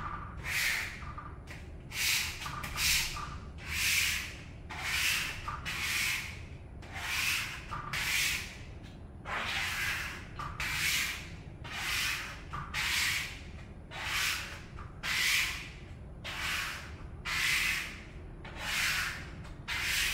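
A small plastic squeegee rubbing over window privacy film in repeated strokes, about one a second, pushing the film flat against the glass.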